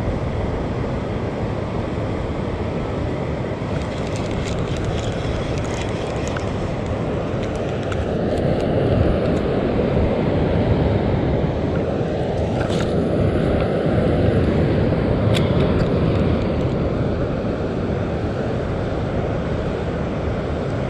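Wind buffeting the microphone, a steady low rumble that swells a little midway, with a few faint clicks from the spinning reel being cranked.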